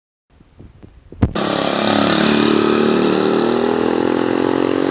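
A sharp click about a second in, then a motorcycle engine running loudly at steady revs.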